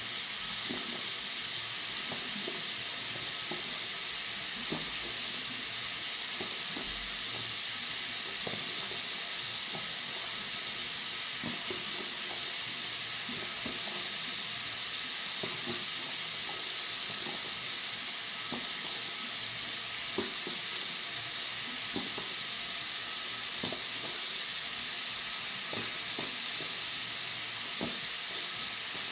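Water running steadily from a bathroom sink tap: an even, hissy rush of water with small, irregular splashes and drips ticking through it.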